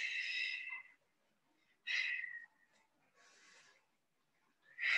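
A woman's sharp, breathy exhales of effort during criss-cross Pilates crunches: one at the start, a shorter one about two seconds in, and a faint breath about three and a half seconds in.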